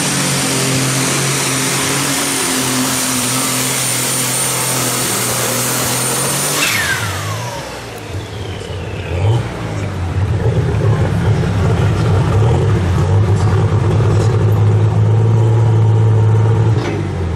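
Unlimited Super Stock pulling tractor's turbocharged diesel at full power, with a steady high turbo whine. About seven seconds in the throttle comes off and the whine falls away in pitch. The engine then runs on with a heavy low rumble at the end of the pull.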